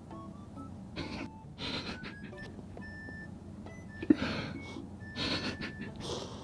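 A few short, soft breathy puffs close to the microphone, with a sharp click about four seconds in, over faint background music with sparse plucked notes.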